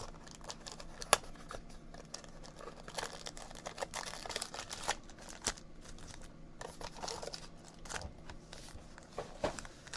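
Trading card boxes and their wrappers being handled and opened: irregular crinkling and tearing of packaging with scattered clicks and knocks, one sharp click about a second in.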